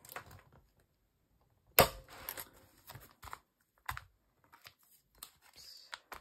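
Plastic photocard binder pages and sleeves being handled and turned: scattered crinkly rustles and light clicks, with one sharp knock about two seconds in.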